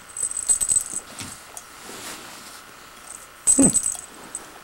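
A small toy ball rattling and jingling in two short bursts as a kitten bats it about, with a brief falling vocal sound during the second burst.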